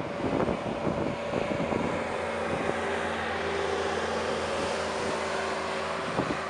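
GE90-115B turbofan engines of a Boeing 777-300ER running as the airliner rolls out on the runway just after touchdown: a steady rushing noise, with wind buffeting the microphone in the first second or so. A few steady engine tones rise out of the noise a few seconds in.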